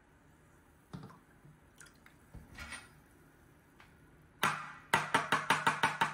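A metal spoon stirring a drink fast in a ceramic mug, rapping against the mug's sides: one loud clink, then a quick even run of about seven clinks a second. Before that come a faint knock and a short splash of liquid being poured.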